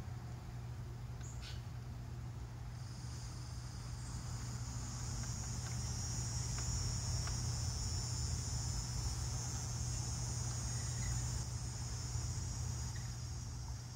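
A high, steady insect buzz that swells in about three seconds in, holds, and fades away near the end, over a low steady hum.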